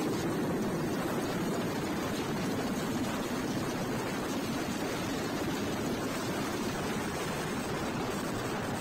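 Mi-8 transport helicopter's turbine engines and rotor running close by: a steady, even rushing noise.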